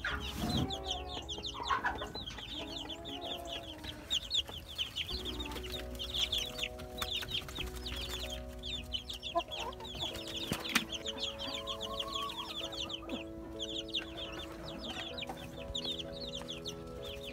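A brood of two-week-old chicks peeping constantly, many rapid high falling chirps overlapping.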